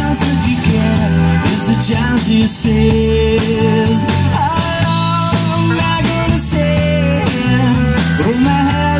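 Live rock band playing: electric guitar, bass guitar and drums, with bending melody notes over a steady bass and drum beat.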